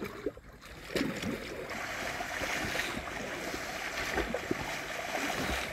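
Steady rushing water noise that starts about a second in, with a few low knocks.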